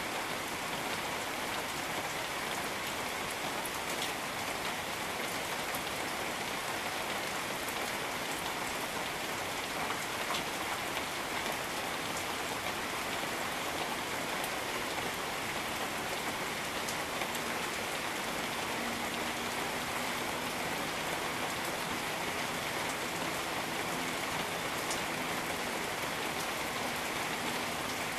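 Steady rain falling in a jungle, an even hiss with a few sharper individual drops standing out now and then.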